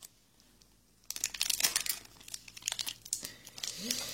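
Foil Pokémon booster pack wrapper crinkling and tearing as it is handled and opened, starting about a second in.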